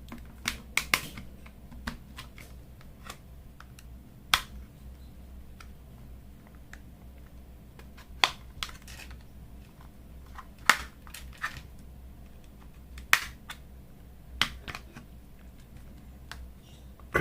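Vivo Y11 phone's plastic back cover being pried off with an opening tool: a dozen or so sharp, irregular clicks and snaps as the cover's clips pop loose. A steady low hum sits underneath.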